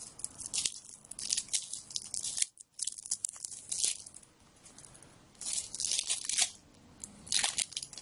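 Crinkling and tearing of packaging as the second deck of a Magic card pack is unwrapped, in several short crackly bouts: the strongest about halfway through and near the end.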